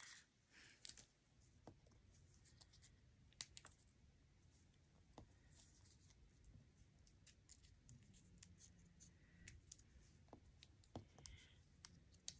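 Near silence, with faint scattered light clicks and taps: small die-cut paper letters being picked up and set down on a craft mat.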